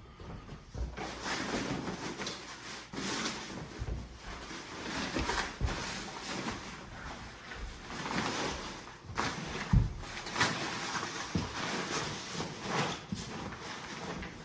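Waterproof toboggan tarp rustling and crinkling as a sled pack is folded and wrapped in it, in irregular swells, with a few dull thumps of the pack being handled, the loudest about ten seconds in.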